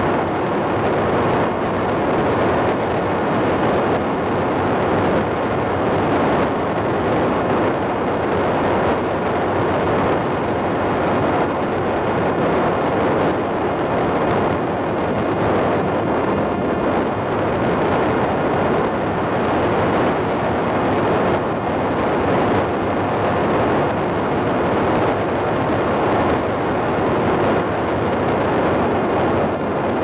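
Steady rushing noise of a Parrot Disco fixed-wing drone in fast cruising flight: airflow with the electric pusher motor running.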